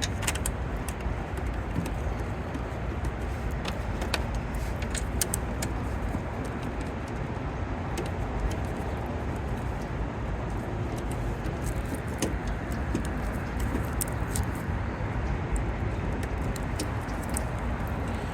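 Steady low rumble, with scattered light clicks and clinks of small hardware being handled.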